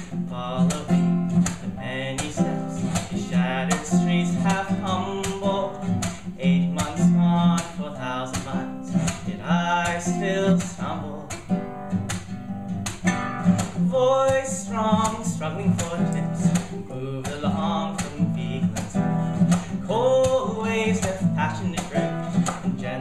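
Acoustic guitar strummed in a steady rhythm, with a man singing over it: a live solo folk-punk song.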